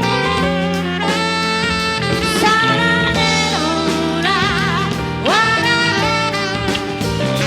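Instrumental break in a Spanish-language song: a lead melody with vibrato and sliding notes plays over a full band with drums.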